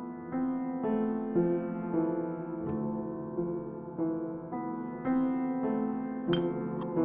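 Slow piano music, a new note or chord about every half second. A short sharp click about six seconds in, with a fainter one just after.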